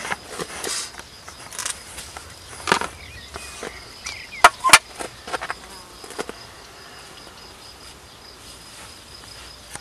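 Hands handling fishing line and tackle while tying a carp rig's hooklength: scattered light rustles and a few sharp clicks, two of them close together about halfway through. A steady high insect trill runs underneath.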